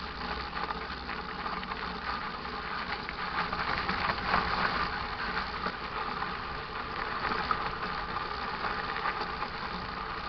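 Mountain bike rolling over a rough dirt trail: steady tyre and riding noise with continual irregular rattling and knocking of the bike, busiest about four seconds in.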